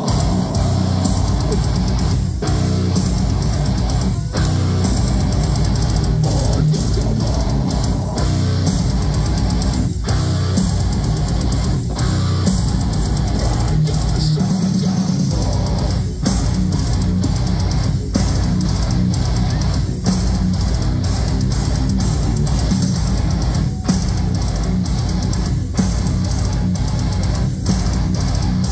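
Metalcore band playing live: heavy distorted guitars and drum kit, with hard accents about every two seconds, heard from within the crowd.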